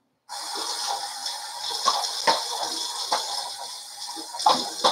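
Bathroom tap starts running into the sink a moment in, with irregular splashes as hands scoop water onto the face to rinse off shaving lather.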